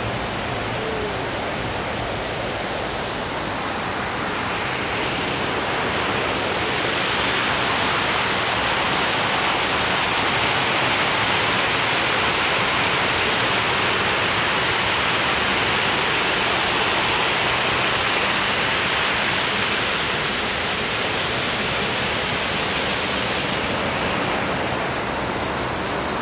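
Water pouring over a small dam spillway and rushing down a concrete channel: a steady rush that grows louder in the middle and eases toward the end.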